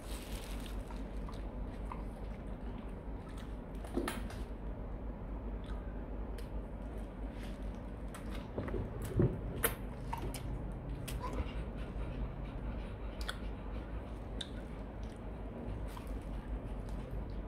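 Rottweilers chewing small treats taken from a hand: irregular wet clicks and crunches of teeth, with a louder knock about four seconds in and two more near the middle.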